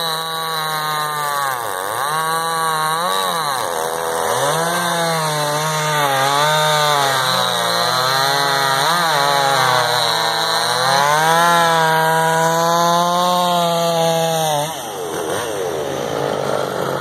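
Gas chainsaw cutting through large logs at high revs, its engine pitch dipping and recovering as the chain loads up in the wood. The engine drops off sharply near the end, and a quieter engine sound carries on after it.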